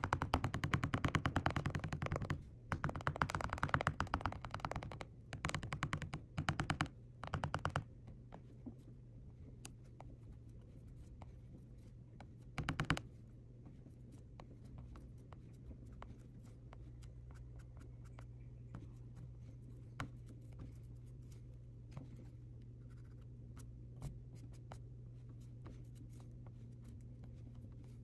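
An eraser rubbing back and forth over watercolor paper to lift pencil guidelines, with quick scratchy strokes in several bursts over the first eight seconds and one more short burst in the middle. After that only faint scattered ticks remain.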